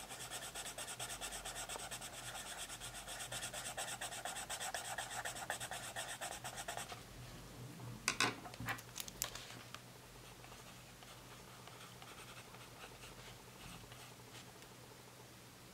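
Derwent Artists coloured pencil scribbled back and forth on paper in rapid strokes, filling in a colour swatch, for about seven seconds. A few sharp taps come about eight seconds in, and then the fainter scratch of a pen writing on the paper.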